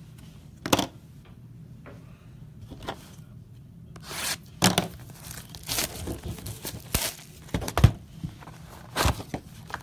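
A cardboard trading-card hobby box being opened and handled by hand: scattered sharp knocks and taps on the box, with tearing and rustling of wrapping and cardboard from about the middle on.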